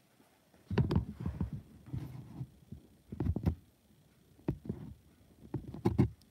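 Muffled handling noise against the microphone: irregular low bumps and rubbing with sharp clicks, starting under a second in and coming in clusters.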